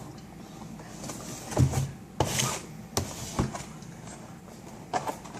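Packaging of a Blu-ray box set being handled and rubbed, with a few scraping rustles and several sharp clicks.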